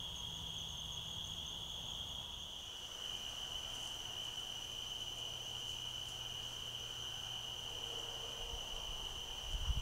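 Crickets trilling steadily at night in one high, even tone, the pitch dropping slightly about three seconds in. A low rumble comes in near the end.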